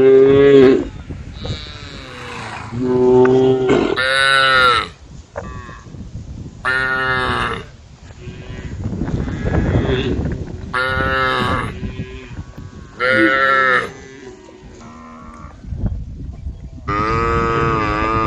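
Several cows mooing one after another: about seven long, loud calls, one lower-pitched than the rest, with short gaps between them.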